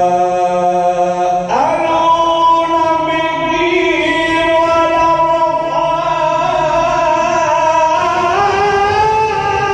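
Melodic Quran recitation by a solo voice, drawing out long held notes that shift to a new pitch about one and a half seconds in and again near eight seconds.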